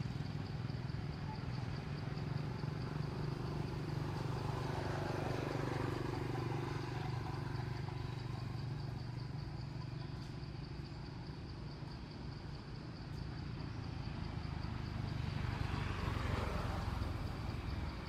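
Steady outdoor background: a low, engine-like hum with a thin, steady high drone like insects above it. The noise swells softly twice, about five seconds in and again near the end.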